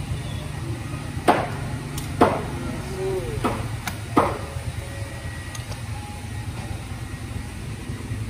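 Metal machine parts being knocked and struck on a concrete floor: four sharp metallic knocks with a short ring in the first half, then only a steady low hum.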